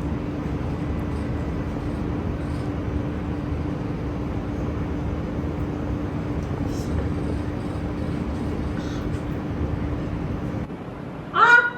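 Steady low rumbling noise with a constant hum, which drops off shortly before the end. Right after it comes a brief, loud voice cry that bends up and down in pitch.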